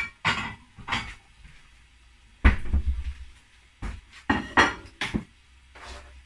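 A plate clinking and knocking against other dishes as it is taken from a kitchen cupboard, then a wooden cutting board knocking against the plate. A run of separate clinks and knocks, the loudest about two and a half seconds in.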